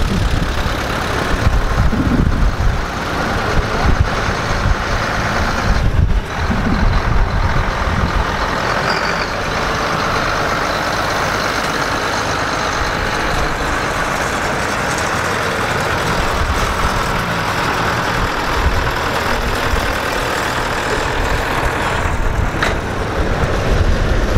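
Allis-Chalmers tractors driving past one after another with their engines running: small vintage tractors with an uneven low rumble first, then a steadier, evener engine sound as a large cab tractor passes pulling a passenger wagon.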